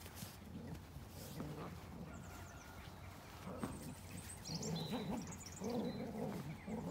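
Small birds chirping in short calls, mostly in the second half, over low irregular snuffling and grunting sounds that grow stronger near the end.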